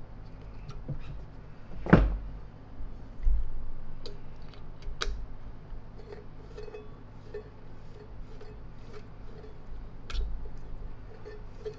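Handling noise from a vacuum cleaner motor being worked on: scattered clicks and knocks of pliers and plastic parts against the motor housing, with one sharp knock about two seconds in and smaller ones after it.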